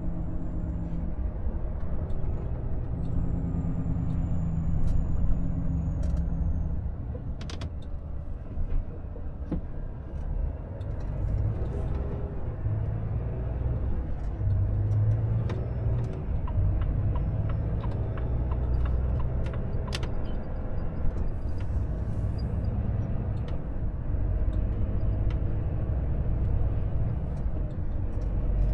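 Volvo FH 460 truck's 13-litre six-cylinder diesel engine running under way at low town speed, heard from inside the cab together with road noise as a steady low rumble.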